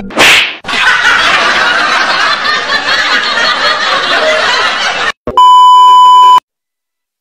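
A short loud burst, then about four seconds of snickering laughter, then a loud, steady electronic beep lasting about a second that cuts off abruptly.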